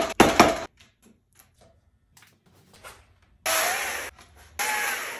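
A few heavy wooden knocks at the start as a log is set down, then quiet, then a chainsaw cutting into the wood from about three and a half seconds in, running steadily with a wavering whine. It eases off for a moment near the end, then bites in again.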